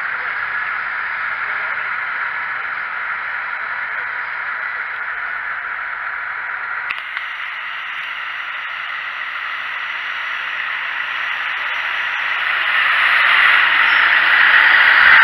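Massey Ferguson tractor pulling a mounted reversible plough through the soil, heard as a steady noisy wash of sound with no clear engine note. It grows louder near the end as a tractor comes close.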